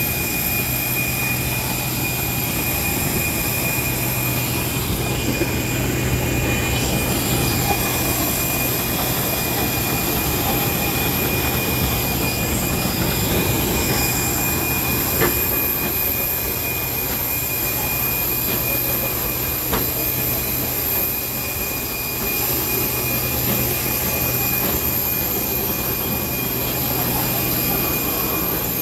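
Steady whine and hum of jet airliners on an airport apron, with constant high-pitched tones over a low drone. A couple of faint knocks in the middle come from footsteps on the metal boarding stairs.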